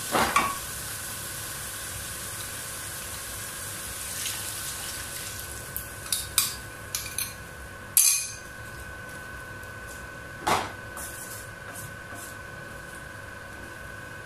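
A wooden spatula scraping and stirring vegetables in an aluminium kadai over a steady hiss, with a few clicks and then a loud clink as a steel spoon scoops red sauce out of a glass bowl into the pan about eight seconds in, and another knock against the pan a couple of seconds later.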